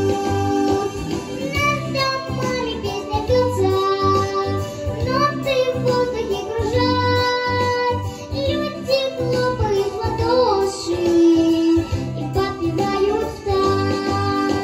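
A young girl singing a melody with held notes over an instrumental accompaniment with a steady bass beat.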